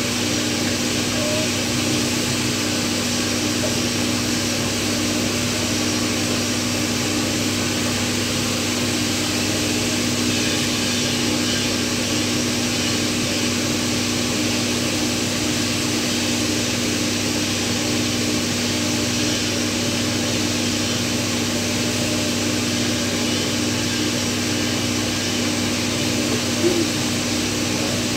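Steady machine drone: a constant hum under an even hiss, unchanged throughout, with one brief faint knock near the end.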